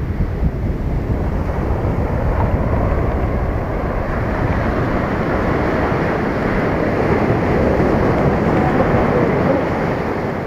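Ocean surf breaking and washing up the beach, with wind rumbling on the microphone: a steady rushing noise.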